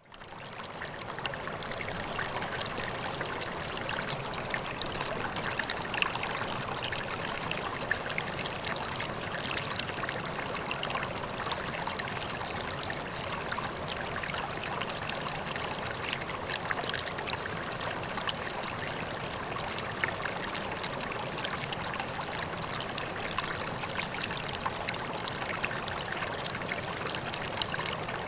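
Water of a koi pond pouring and trickling steadily, with small splashes. It fades in over the first second.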